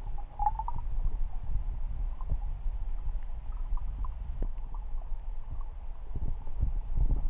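Muffled underwater noise picked up by a camera held under water: a steady low rumble with scattered knocks and clicks.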